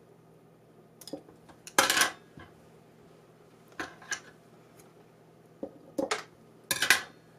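Clinks and knocks of small containers and tools being handled and set down on a hard surface, in three short bursts.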